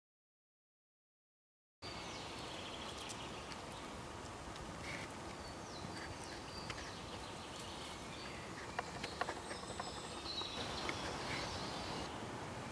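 Dead silence for about the first two seconds, then steady woodland background with small birds calling in short chirps and whistles, and a few faint clicks.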